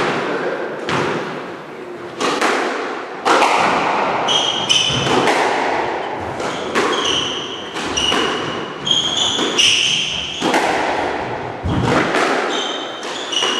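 Squash rally: the ball struck by rackets and hitting the court walls about once a second, each hit echoing in the court, with short high squeaks of shoes on the wooden floor.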